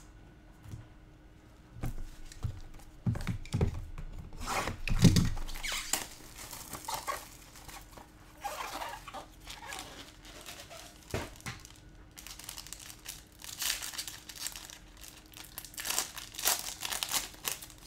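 Cardboard and wrapper packaging of a Tier One baseball card box being torn open and crinkled by hand, in irregular rips and rustles. A few heavier thumps come about three to five seconds in.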